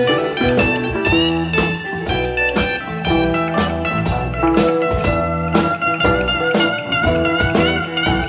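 Blues band playing an instrumental passage: a lead guitar line with bending notes over bass and a steady drum beat.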